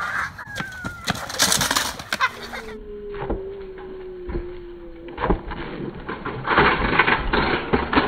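Kick scooter rolling over an asphalt driveway, then a loud scraping clatter about six and a half seconds in as the rider falls and the scooter hits the pavement.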